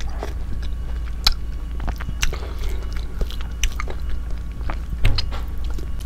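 Close-miked eating sounds: wet smacking, sucking and chewing clicks from a mouthful of ripe mango, then fingers mixing rice on a plate, with one louder knock about five seconds in. A steady low hum lies underneath.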